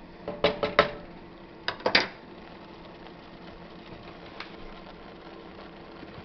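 A utensil knocking against a metal saucepan: a quick run of about four clinks, then three more a second later, the last the loudest. A faint steady hiss continues underneath.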